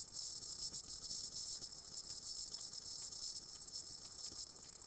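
Faint scratching and light ticks of a stylus writing on a tablet screen, over a steady high-pitched hiss.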